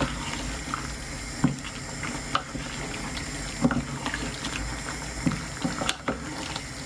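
Wooden spoon stirring chunky vegetables and fish in an aluminium pot, with irregular wet scrapes and knocks of the spoon against the pot, over a steady hiss from the simmering pot on the gas hob.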